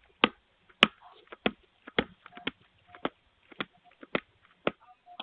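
A doorbell camera's button being pressed over and over: a run of sharp clicks, about two a second, picked up right at the unit's microphone.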